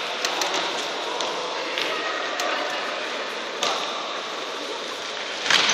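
Echoing sports-hall noise of a futsal game in play, with a handful of sharp knocks of the ball being kicked and passed on the wooden floor, the loudest near the end.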